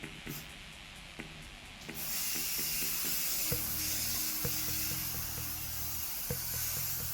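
Aerosol can of spray primer hissing steadily as it sprays. A short spurt comes right at the start, and the continuous spray begins about two seconds in.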